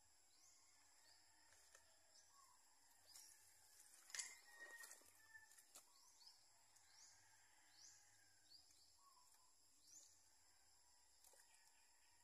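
Near silence with faint outdoor ambience: a steady high insect drone and short rising chirps repeating about once a second. There is a brief spell of clicks and rustling about four seconds in.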